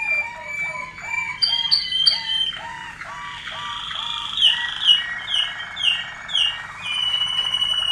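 Caged song canaries singing: a rolling series of repeated low hooked notes, then a series of higher downward-sliding notes about two a second, running into a long steady whistle near the end.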